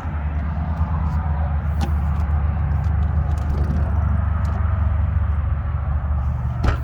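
Steady low rumble with a few faint, sharp clicks over it.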